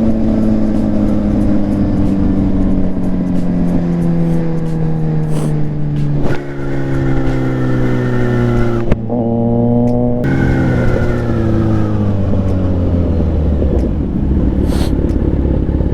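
Kawasaki Z900 inline-four motorcycle engine slowing down through the gears. The exhaust note falls steadily in pitch, jumps back up at downshifts about six and ten seconds in, and goes briefly off-throttle just before the second.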